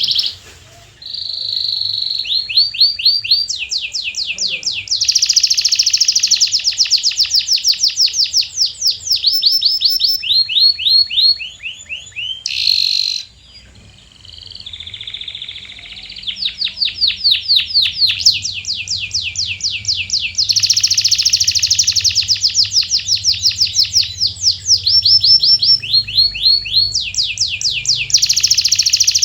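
Domestic canary singing in long rolling trills: fast runs of repeated high notes, each run at its own speed and pitch, with brief pauses about a second in and again near the middle.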